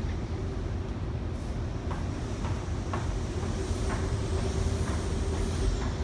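Typhoon wind and rough, breaking sea: a steady, loud, low rumble with a few faint clicks.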